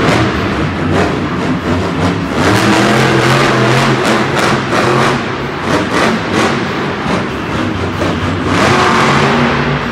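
Maximum Destruction monster truck's supercharged V8 engine revving up and down repeatedly as the truck drives the arena floor.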